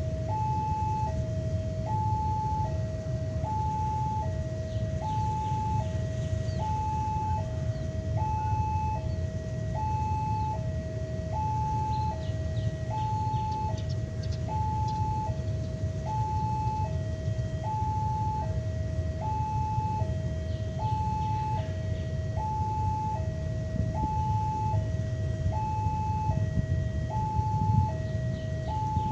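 Railway level-crossing warning alarm sounding its two-tone signal, a lower and a higher tone alternating about once a second, the warning that a train is approaching. A steady low rumble runs underneath.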